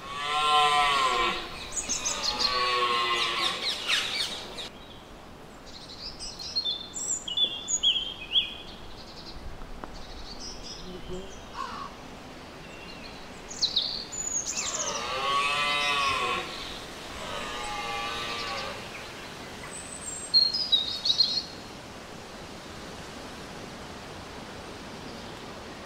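Red deer stag roaring in the rut: two long, deep bellows right at the start and two more about fifteen seconds in. Small birds chirp in the gaps.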